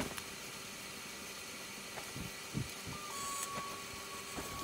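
Prusa i3 MK3 3D printer running its self-test with a steady mechanical hum. About three seconds in, a steady high whine starts as the X-axis stepper motor drives the carriage for the axis check.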